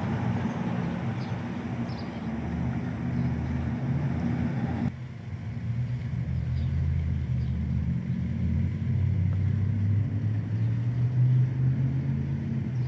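A steady low motor drone made of several held low pitches, like an engine idling. A lighter hiss above it drops away about five seconds in.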